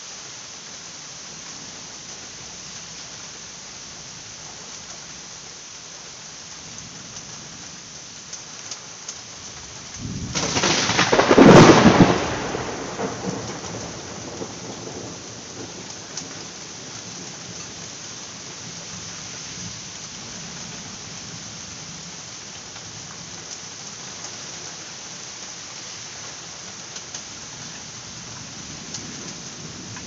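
Steady rain falling throughout. About ten seconds in, a clap of thunder builds quickly to its loudest point a second later, then rumbles away over the next few seconds.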